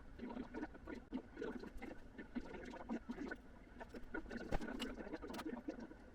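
Irregular light taps, clicks and rustling of small objects being handled on a workbench, with one sharper knock about four and a half seconds in.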